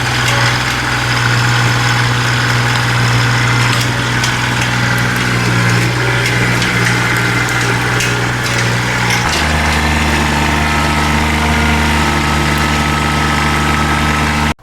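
Kubota BX23 compact tractor's three-cylinder diesel engine running steadily, then dropping to a lower, slower steady note about nine seconds in as the throttle is eased back.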